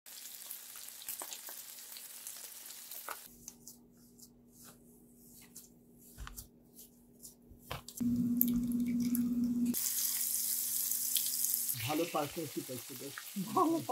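Hilsa fish steaks frying in hot oil in a pan with green chillies: sizzling with crackles and pops, a steady hum through the middle, and a loud spell of sizzling around ten seconds in.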